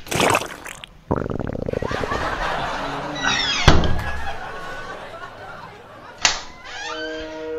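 Comic fart sound effects: a long sputtering one starting about a second in, then squeaky rising ones, standing for an upset stomach. A door bangs shut loudly near the middle.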